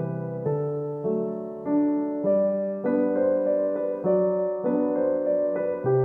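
Background piano music, slow and gentle, with new notes struck about every half second to a second and left to ring.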